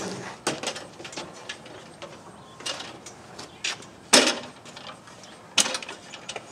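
Folding metal step ladder clattering as it is pulled out of a storage compartment and unfolded: a handful of separate knocks and clanks, the loudest about four seconds in.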